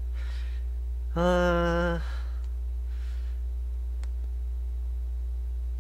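A man's short closed-mouth hum, one steady 'mmm' about a second long, with quiet breaths before and after it. A constant low electrical hum sits underneath, and there is one small click near the middle.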